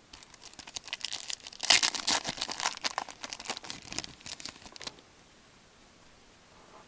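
Trading-card pack wrapper being torn open and crinkled by hand: about five seconds of dense crackling, loudest around two seconds in, then it stops.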